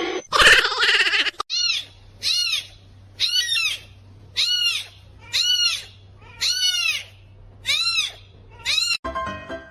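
An animal calling over and over, about once a second: eight short high calls, each rising then falling in pitch. It follows a loud harsh noise at the start.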